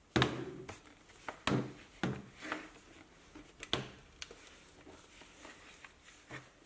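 Irregular clicks and knocks of hard plastic and metal parts being handled during a laptop graphics card swap, about ten in all, the loudest right at the start.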